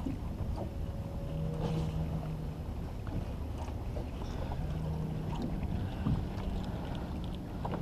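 Steady low rumble of wind and water around a small boat, with a faint low hum that comes in twice and a few light clicks.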